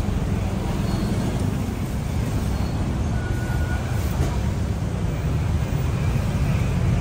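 Steady low rumble of passing street traffic: motorbikes and cars running along the road.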